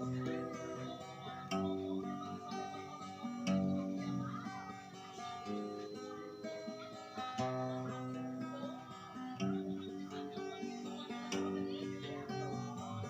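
Instrumental music: strummed acoustic guitar chords, a new strum about every two seconds with the notes ringing on between them.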